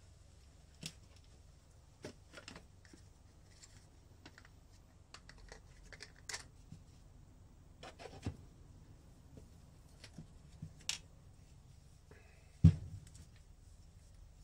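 Scattered light clicks and scrapes of parts and tools being handled on a wooden workbench. Near the end there is one loud knock as the engine crankcase is turned over and set down on the bench.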